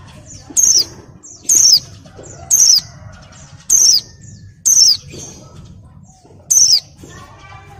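A white-eye (pleci) calls six times, about once a second, each a short high note that falls in pitch, with softer chirps between. The uploader presents these calls as a bird in breeding condition calling to males.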